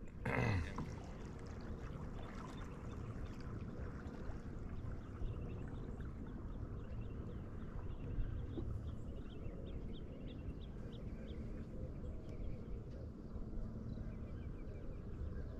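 Quiet lake ambience around a fishing kayak: a low, steady wash of water and light air, with faint high bird chirps scattered through the middle.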